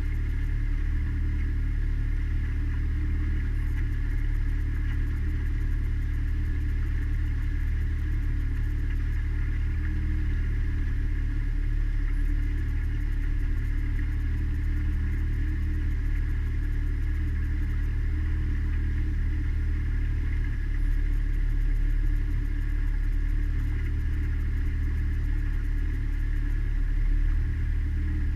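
Mariner outboard motor running steadily, driving a small cruiser along at an even speed; a level drone that does not change.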